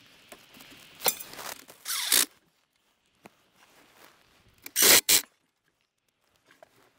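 Cordless DeWalt drill-driver whirring in short bursts as it drives the mounting screws of a propane regulator, with clicks and scrapes of handling between. The loudest are two quick bursts about five seconds in.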